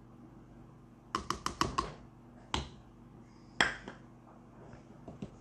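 Plastic measuring cup tapped against a plastic funnel on a glass jar to knock the flour through: a quick run of about five light taps, then two single knocks, the loudest about two thirds of the way in, with a few faint ticks near the end.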